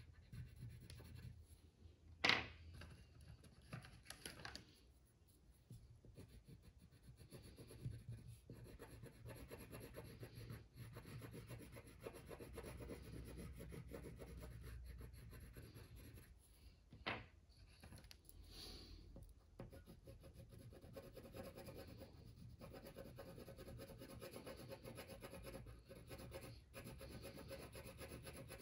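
Wax crayon rubbing back and forth on paper, faint and scratchy, with two sharp taps, one a couple of seconds in and another about fifteen seconds later.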